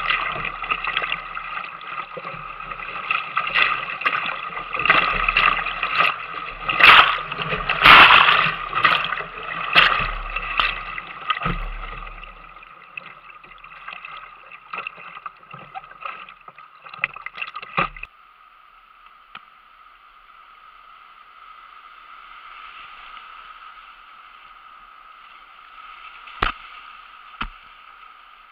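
Kayak running whitewater rapids: fast water rushing and splashing against the hull, with loud splashes and crackles through the first part. About two-thirds of the way in it cuts abruptly to a quieter, steady rush of fast river water, with two sharp knocks near the end.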